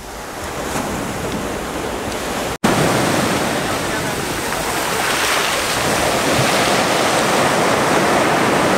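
Surf breaking and foaming up the shore, a loud steady rush of water. The sound cuts out for an instant about two and a half seconds in and comes back louder.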